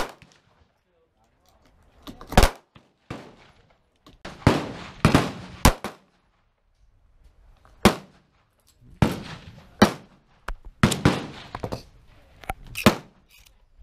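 Semi-automatic pistol shots, a dozen or so fired at uneven intervals by more than one shooter. Each is a sharp crack followed by a brief echo.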